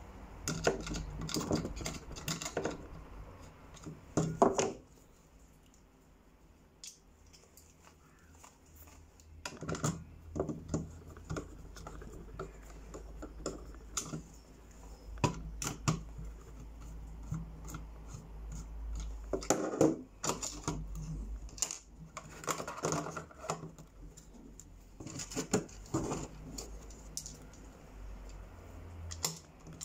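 Screwdriver clicking and scraping as screws on a pistol are worked, with small parts tapped and handled on a table, in short clusters of a second or two separated by quieter gaps.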